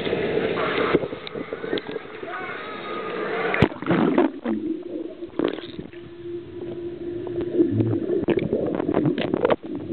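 Poolside chatter, then about a third of the way in the microphone plunges under the pool water with a sharp splash. After that the sound is muffled underwater: bubbling with scattered clicks over a steady low hum.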